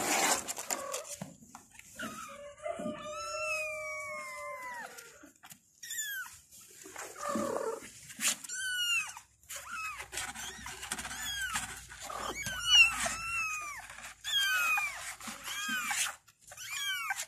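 Young kittens meowing over and over in short, high, rising-and-falling cries, with one longer, lower meow about two seconds in.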